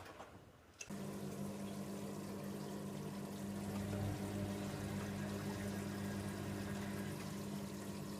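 Hoover Nextra HNWL7146 washer dryer running water through the machine: the flow starts abruptly about a second in and carries on steadily, with a constant hum under the rushing water.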